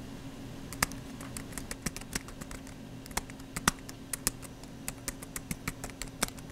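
Computer keyboard typing: irregular key clicks, a few a second, as a line of text is typed, over a steady low hum.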